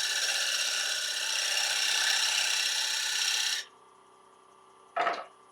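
Turning tool cutting a dried mulberry bowl blank spinning on a wood lathe, a steady scraping cut as the bowl's shoulder is enlarged. It stops suddenly about three and a half seconds in, the lathe runs on quietly, and a brief scrape of the tool comes near the end.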